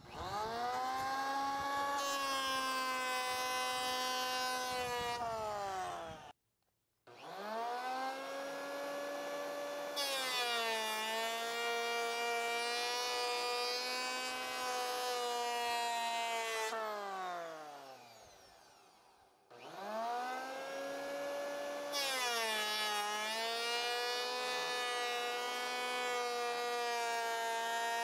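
Ryobi electric hand planer running as it planes the bottom edge of a wooden door, with a steady high motor whine. It starts three times: each start is a rising whine as the cutter head spins up. The first run cuts off abruptly about six seconds in, and the second falls away as the motor winds down before the third run.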